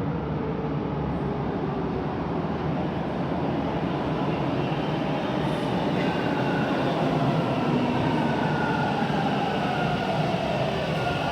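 A TTC rail vehicle running along the track: a steady rumble that grows slightly louder, with a whine that falls slowly in pitch from about halfway through.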